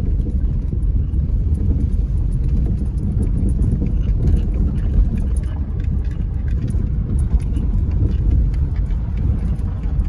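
Car driving slowly on a dirt road, heard from inside the cabin: a steady low rumble of engine and tyres, with faint scattered clicks.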